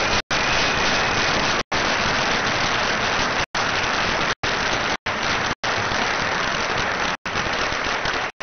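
Large audience applauding loudly and steadily: a sustained ovation from a packed lecture hall. The recording cuts out for an instant several times.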